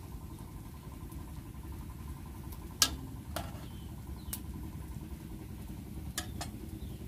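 A steel ladle knocking against a metal cooking pot about five times as soup is scooped out, the loudest knock about three seconds in, over a steady low rumble.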